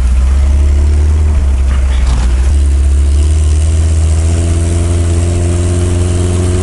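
Off-road vehicle engine pulling away under load over a heavy low rumble, its pitch climbing slowly through the second half.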